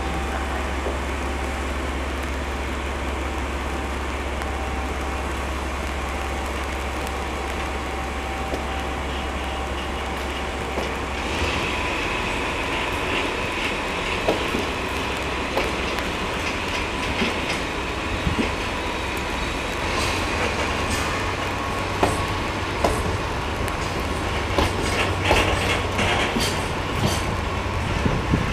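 A DE10 diesel-hydraulic locomotive pulls a container freight train away from the station, its engine giving a steady low drone. About eleven seconds in the sound changes: the container wagons' wheels start clacking over rail joints with a thin squeal, and the clacks come faster toward the end.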